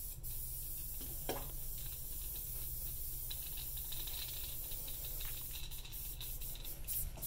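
Aerosol spray can hissing steadily as it sprays into a sink, with a few faint clicks near the end.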